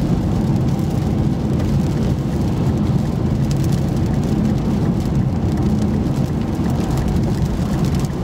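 Steady road and engine rumble inside a moving car's cabin, on rain-wet roads with rain falling.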